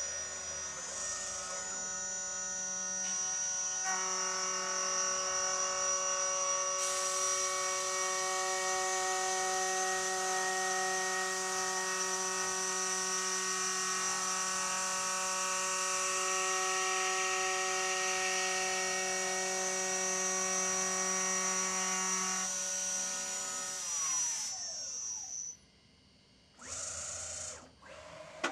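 High-speed 2.2 kW spindle of a homemade CNC mill running with a steady whine while a 6 mm two-flute endmill machines 10 mm aluminium plate; a hiss joins about seven seconds in. About 22 seconds in the whine drops away in a falling glide as the spindle spins down, followed by two short bursts of noise near the end.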